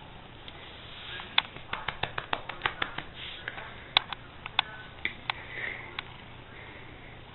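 A hand patting a cat's body in a quick, irregular run of sharp slaps, starting about a second and a half in and ending about six seconds in.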